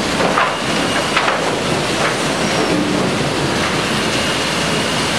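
Sawmill timber-handling machinery running: a steady, loud mechanical clatter with a few knocks, typical of sawn planks moving along a sorting and stacking line.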